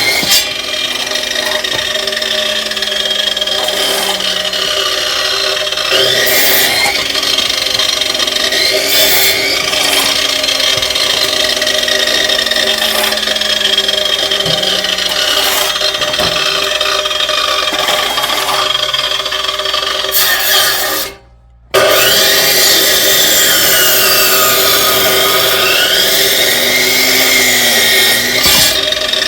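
A power tool working wood, running steadily with a tone that slowly sinks several times. The sound cuts out for about a second near three-quarters of the way through.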